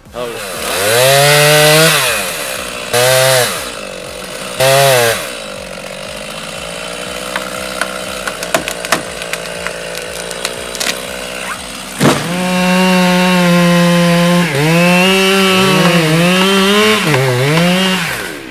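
Two-stroke chainsaw revving: the engine climbs to full throttle, is blipped twice, then runs lower with scattered sharp ticks. About two-thirds of the way in it is opened up again and held high, with several quick dips and rises in pitch before it cuts back near the end.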